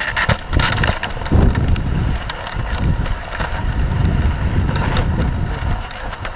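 Dog sled pulled by a team of Siberian huskies over packed snow: a steady low rumble of the runners with wind buffeting the microphone, and scattered clicks and knocks. The rumble builds about a second in and eases near the end.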